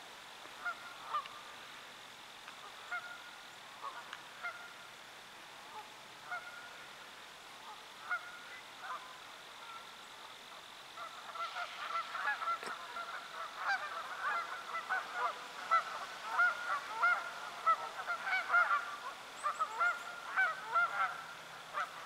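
A flock of birds calling in many short, overlapping calls, scattered at first and much denser and louder from about halfway through.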